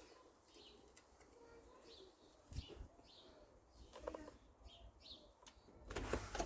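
Faint, scattered bird chirps, with a few small handling clicks and knocks about four seconds in and near the end as hands work the fuel line and grommet on the strimmer.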